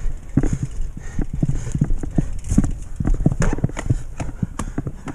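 Mountain bike ridden over a rough forest singletrack: irregular knocks and rattles from the bike as it jolts over the ground, several a second, over a steady low rumble.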